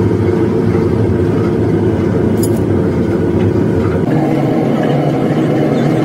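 A motor running steadily and loudly, its tone shifting slightly about four seconds in.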